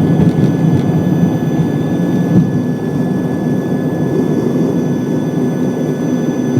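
Steady, loud drone of an airliner's jet engines heard from inside the cabin, with a constant low hum and thin high whines.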